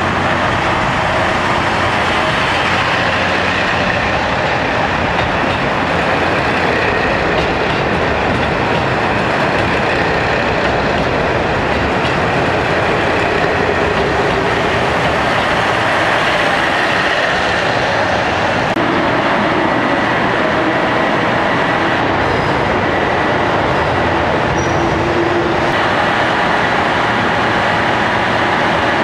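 Asahiyama Zoo train, a KiHa 183 series diesel multiple unit, running slowly past along the platform: diesel engines and steel wheels on the rails, steady and loud. Its wheels carry flat spots.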